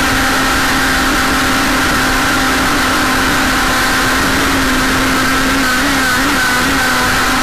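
Radio-controlled jersey skiff's motor running at a steady pitch, heard from on board the hull, over a constant rush of water and wind; the pitch wavers briefly near the end.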